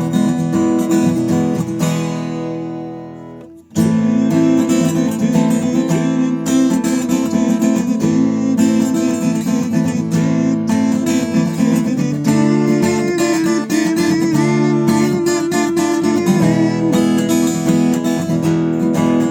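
Newtone Gypsy Road GA 45 acoustic guitar strummed unplugged, its chords heard straight from the body. About two seconds in a chord is left to die away, then the strumming starts again.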